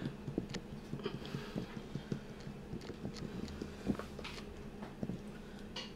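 Faint, irregular tapping on a plastic powder scoop, knocking a heaped scoop of G Fuel powder out into a shaker cup: light quick ticks, several a second, one a little louder near the end.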